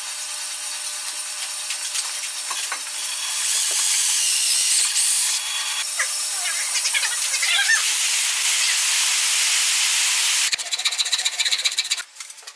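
Cordless drill running steadily with a hissing cut into wood. About ten seconds in, the sound breaks into a fast, even rasping rhythm, which stops near the end.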